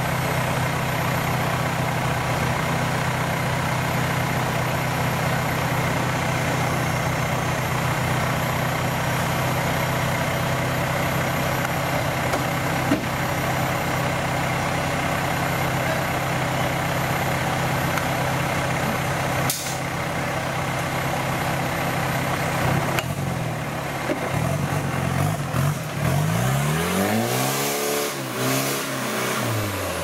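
Off-road 4x4's engine idling steadily, then revved up and down several times near the end.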